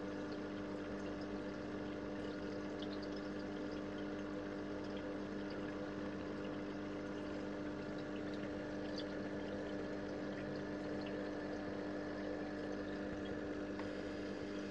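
Small pump running with a steady hum while water bubbles and trickles, with faint scattered pops of bubbles.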